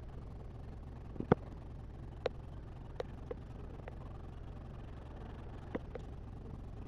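Steady low hum of an aquarium air pump running, with several short, sharp clicks scattered through, the loudest a little over a second in.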